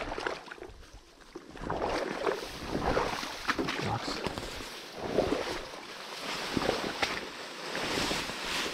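A person wading through water among reeds and brush: uneven sloshing and rustling steps as the water gets deeper.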